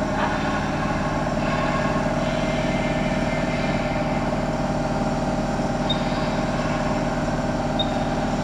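Steady machine hum from lab equipment, one unchanging drone with several steady tones, broken only by two faint short high ticks near the end.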